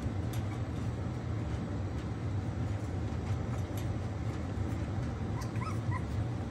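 Young Akita puppies giving a few short, high squeaks and whimpers near the end, over a steady low hum.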